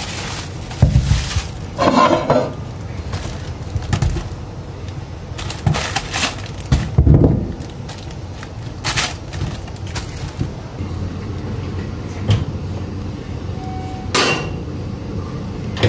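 Food being unpacked on a stainless steel kitchen counter: a plastic bag rustling, with scattered knocks and clatter as a plastic basket and vegetables are handled and set down.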